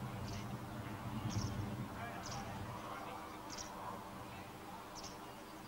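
Faint outdoor ambience: a low murmur of distant voices, with a short high chirp repeating about once a second.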